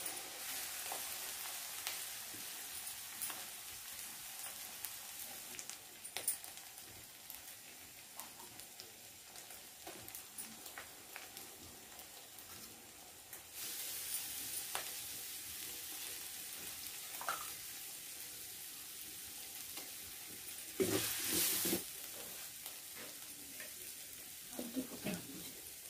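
Onions and spices sizzling in hot oil in a small steel kadai over a wood fire, a steady hiss with scattered small clicks. The sizzle steps up about halfway through as more spice goes into the pan, and a short, louder rush comes near the end.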